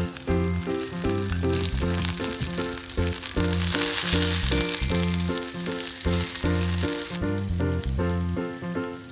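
Food sizzling on a hot iron griddle plate over background music with a steady beat; the sizzling cuts off suddenly about seven seconds in.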